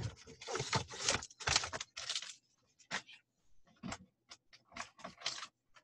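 Rustling of paper and card as cross-stitch kit packs are handled and set down on a desk, then a few scattered light knocks and taps as a binder of kits is fetched.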